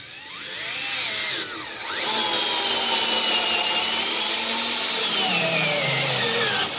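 DeWalt 8V MAX gyroscopic cordless screwdriver whining as it drives a long star-drive screw into wood. The whine climbs in pitch over the first two seconds as the motor comes up to speed, holds steady, then sinks in pitch as the screw goes nearly all the way in, and stops just before the end.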